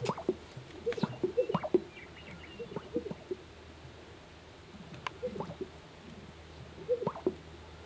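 Greater sage-grouse displaying on a lek: clusters of low, liquid popping from the males' inflated air sacs, coming every second or two, loudest about a second in.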